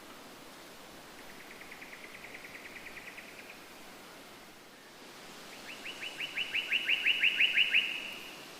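A bird singing two rapid trills of evenly repeated notes: a fainter one, then a louder one about five seconds in that swells toward its end. A steady hiss runs underneath.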